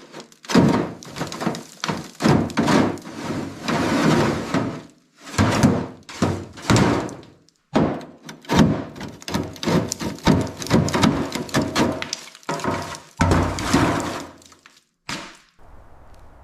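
Repeated knocking, banging and scraping from hands-on work on the car, in several short bursts that break off abruptly between them.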